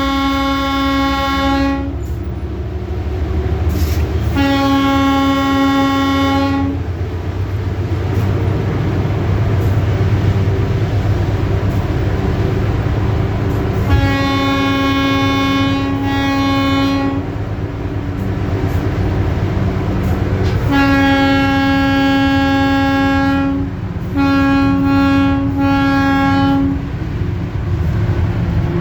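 Train horn sounding in repeated long blasts, one about every few seconds, then two shorter ones close together near the end, over the steady low rumble of the moving train. The blasts are warnings to animals on the track.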